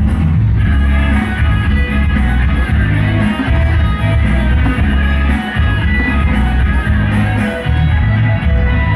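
Loud music with heavy, pulsing bass and guitar, played through a sound system.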